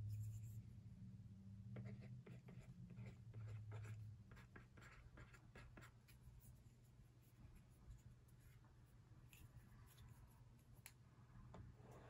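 Stylus tip scratching and tapping on the plastic e-ink screen of a Sony DPT-RP1 Digital Paper tablet during handwriting: faint, with a run of short scratchy strokes about two to five seconds in and lighter scratching later, over a steady low hum.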